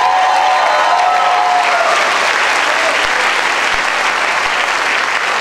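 Audience applauding steadily. Over the first two seconds a held, voice-like tone rides above the clapping, then fades out.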